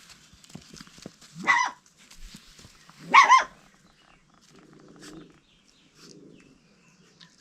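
A dog barks twice, two short barks about a second and a half apart, followed by faint low grumbling sounds.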